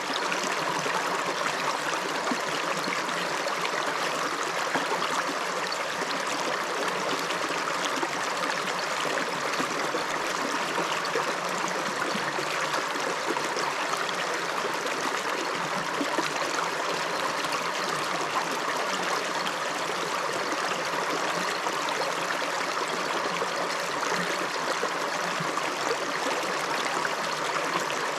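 River water rushing and babbling over rocks, a steady flow.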